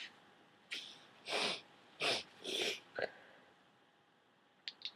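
A person with a heavy, wet head cold taking short sniffing breaths through a congested nose, about five in quick succession over the first three seconds, then two faint clicks near the end.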